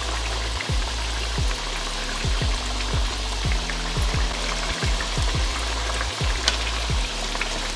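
Background music with a steady beat of deep bass hits that drop in pitch, over an even hiss and crackle of food frying in a pan.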